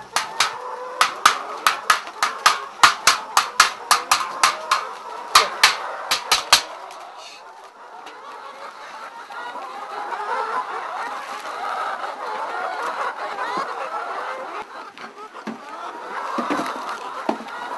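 A quick run of sharp knocks, about three a second, that stops after six or seven seconds, then a flock of chickens clucking.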